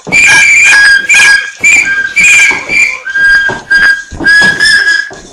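Short, repeated high whistle blasts, loud and distorted, over dance music played for dancing.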